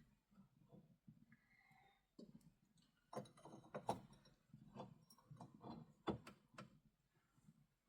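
Faint, irregular clicks and light knocks, with a couple of sharper ones about four and six seconds in.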